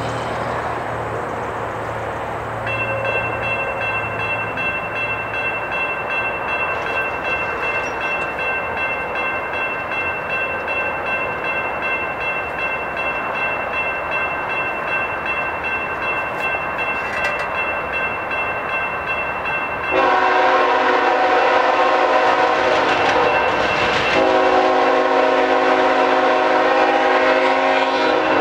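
Grade-crossing warning bell ringing steadily from about three seconds in. About two-thirds of the way through, an approaching GE ET44AH locomotive's horn sounds over it: one long blast, a brief break, then a second blast that runs on.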